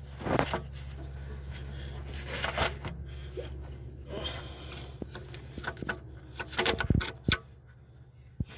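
A hooked pick tool scraping and clicking against a stuck rubber hose and its plastic nipple as the hose is worked loose, with a few short sharp knocks among the scrapes. A low steady hum runs underneath for the first half.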